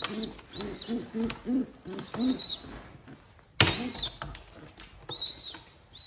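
Pigeons cooing in a quick run of low, repeated calls, with young pigeons peeping high and thin in between; a single sharp knock about three and a half seconds in is the loudest sound.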